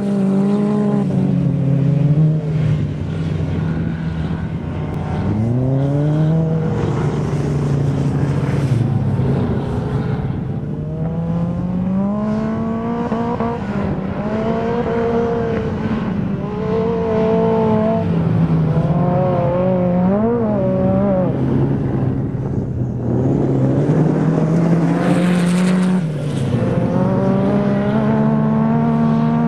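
Sand rail dune buggy engines revving, their pitch rising and falling over and over as the throttle opens and closes. A short rush of hiss comes about three-quarters of the way through.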